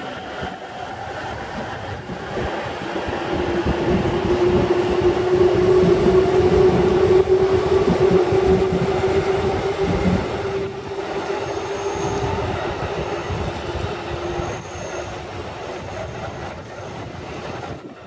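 JR 311 series and 313 series electric multiple units pulling out and accelerating past, with the traction motors giving a slowly rising whine over rumbling wheels and rail-joint clatter. It is loudest about halfway through as the cars pass, then fades.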